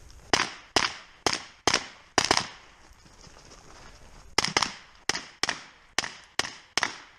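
Rifle shots fired in rapid succession during a timed match stage, roughly two a second. A first string of about six shots is followed by a pause of about two seconds, then a second string of about seven.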